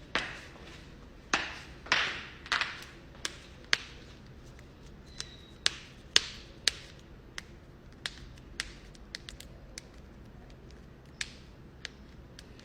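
Joints cracking: a run of about twenty sharp pops and cracks at irregular intervals, the first few with a short rasping tail.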